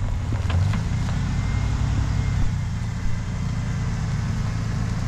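Pickup truck's engine running low and steady in four-wheel-drive low as it creeps slowly off a drop, with a few light clicks under a second in.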